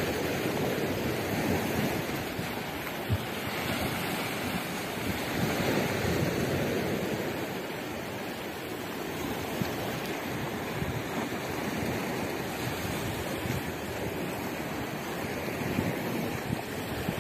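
Sea waves washing against the rocks of a stone breakwater in a steady surf wash, with wind gusting over the microphone.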